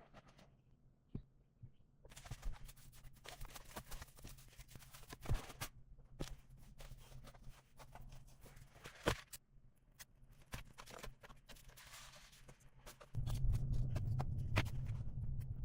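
Scattered knocks, clicks and rustling, with a low steady hum coming in near the end.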